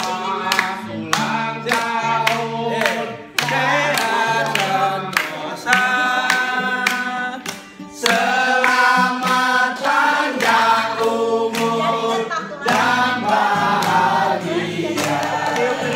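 A group of voices singing a birthday song over music with a steady bass line, with hands clapping along.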